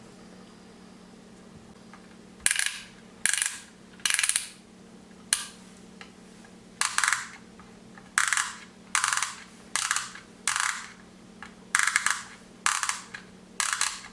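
A toy crane truck being handled: about a dozen short, sharp rattling clacks come at irregular intervals from a couple of seconds in, over a faint steady hum.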